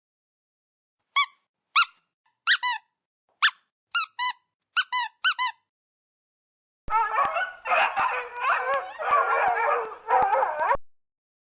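About nine short, high squeaks in quick succession. After a pause, a dog whines and howls in wavering calls for about four seconds.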